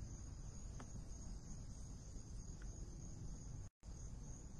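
Faint, steady high-pitched chorus of crickets over a low background rumble. The audio cuts out completely for a split second about three and a half seconds in.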